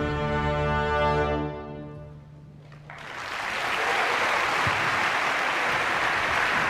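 An orchestra's final held chord ringing out and fading away, then audience applause breaking out about three seconds in.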